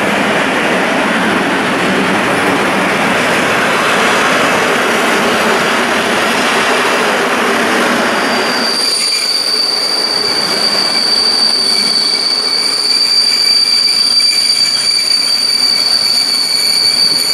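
Passenger train hauled by an EP07 electric locomotive rolling in past the platform: the rumble of the locomotive and coaches, then, about nine seconds in, a steady high-pitched squeal sets in and holds as the coaches brake and slow toward a stop.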